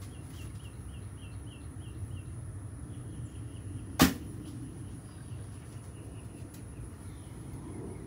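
A 56-pound Black Widow SA III recurve bow is shot once, about four seconds in: a single sharp string slap as it releases a 550-grain arrow, followed by a brief low ring.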